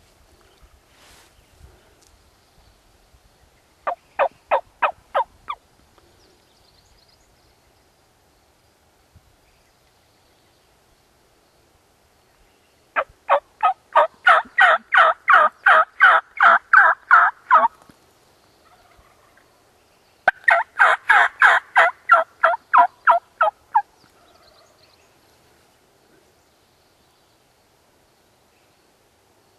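Loud turkey yelping in three quick runs of evenly spaced notes, about four a second: a short run about four seconds in, a long run starting about thirteen seconds in, and another about twenty seconds in.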